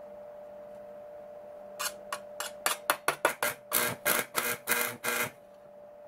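Coated stick electrode of a 100 V household AC arc welder being struck on a steel plate. The arc catches in a rapid string of short spurts, starting about two seconds in, with the later ones lasting longer, and breaks off each time; it stops a little after five seconds. This is the arc struggling to hold on a low supply voltage.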